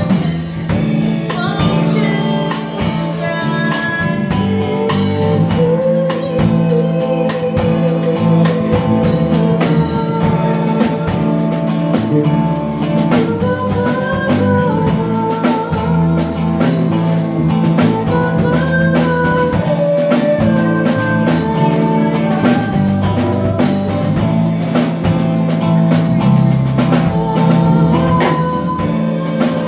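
A live band playing a song: a drum kit keeping a steady beat under guitars, with a woman's singing voice.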